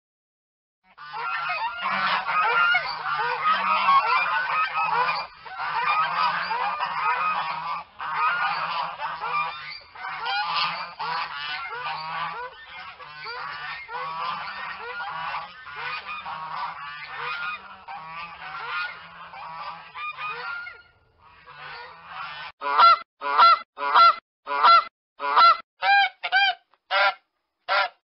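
Geese honking. About a second in, a flock starts calling over one another in a dense, overlapping chorus that lasts some twenty seconds. After a short break, single loud honks follow, repeated about twice a second.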